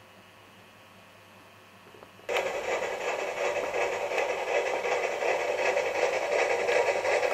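A model train locomotive's electric motor and gears whirring as it runs along the track. It starts suddenly about two seconds in and then runs steadily.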